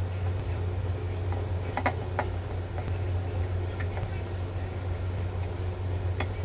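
Eating by hand: a few small clicks and smacks of chewing and of fingers picking at food, over a steady low hum.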